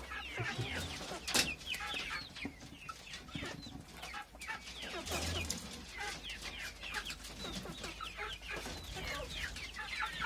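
Nutrias chewing and crunching whole apples, with a steady stream of short, high chirping or clucking calls throughout.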